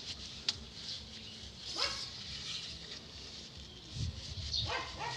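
A dog barking: one bark about two seconds in and a few more near the end. A single sharp click comes about half a second in.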